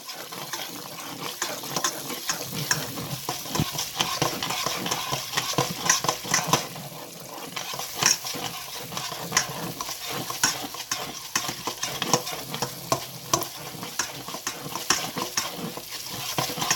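Curry paste frying and sizzling in hot oil in a pot while a utensil stirs and scrapes it round, with frequent short scraping clicks over a steady sizzle. The curry is being fried in the oil to cook out its bitterness.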